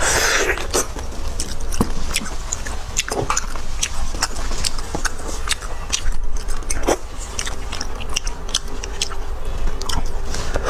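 Close-up mukbang eating sounds: beef bone marrow being bitten, sucked from the bone and chewed, with many short wet mouth smacks and clicks.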